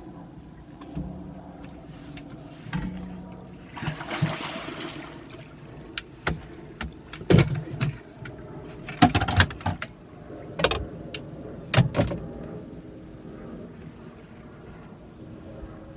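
A string of sharp knocks and thumps from gear being handled on a fishing boat, with a brief rushing hiss about four seconds in and a faint steady hum underneath.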